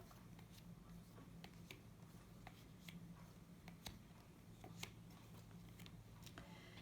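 Faint, scattered clicks and ticks of playing cards being handled and laid on a table, over a steady low electrical hum.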